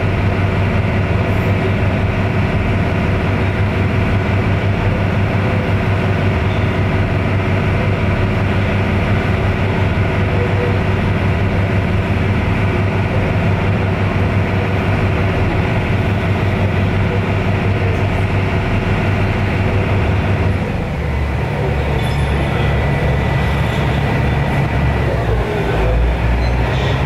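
Wakato Maru harbour ferry's engine running with a steady low drone, heard from the open bow. About 20 seconds in its note drops to a lower, more uneven pitch as the ferry nears the landing.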